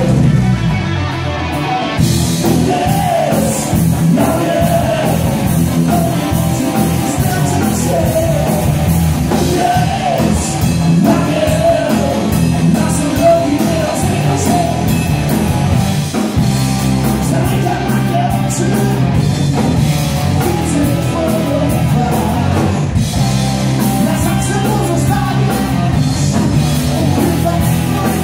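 Hard rock band playing live: electric guitars, bass, drums and keyboard, with a man singing lead vocals.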